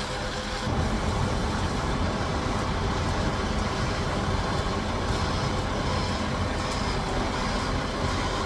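Heavy diesel engine running steadily, with a low rumble that grows a little louder just under a second in. Faint short beeps repeat about twice a second in the second half.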